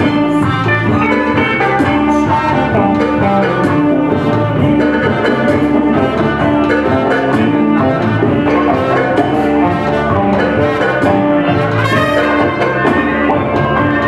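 A small band playing live together: trumpet and saxophone over electric guitar and drum kit, with a short note figure repeating about every 0.7 s underneath.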